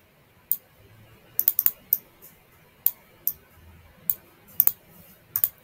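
Computer mouse clicking a dozen or so times at uneven intervals, some clicks in quick pairs or runs, while an image is dragged, resized and rotated in design software.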